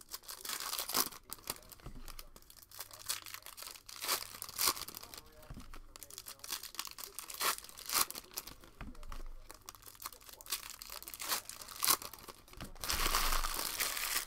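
Foil trading-card pack wrapper crinkling and crackling as it is torn open and handled, in many sharp crackles, with a longer stretch of continuous rustling near the end.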